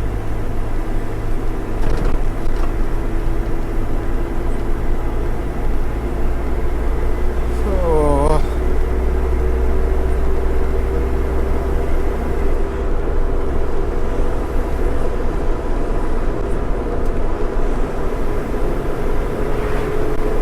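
Truck engine and road noise from a moving lorry, steady throughout, with the engine note climbing slowly as the truck pulls and gathers speed. A brief pitched warble comes about eight seconds in.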